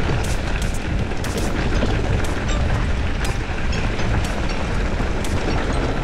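Mountain bike riding over a rough trail: a heavy low rumble of wind buffeting the microphone, with irregular sharp clicks and rattles from the bike.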